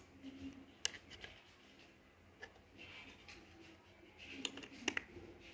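Handling noise from a Canon PowerShot SX430 IS camera and its corded lens cap: a few sharp plastic clicks, a single one about a second in and a louder pair near the end, with light rustling between.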